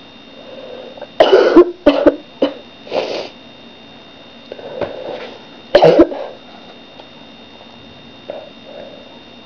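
A person sneezing and coughing in a fit: four sharp bursts in quick succession between about one and three seconds in, then one more loud burst about six seconds in, with fainter breathy sounds between.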